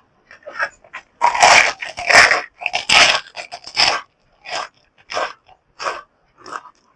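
A person chewing food with loud wet mouth sounds close to the microphone. There is a run of louder chewing and biting in the first half, then steady chewing at about one chew every two-thirds of a second.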